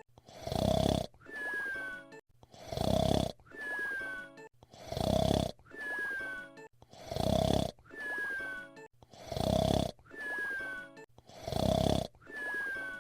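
Cartoon whistle-snore repeating about every two seconds: a loud snore, then a quieter whistle that falls slightly in pitch.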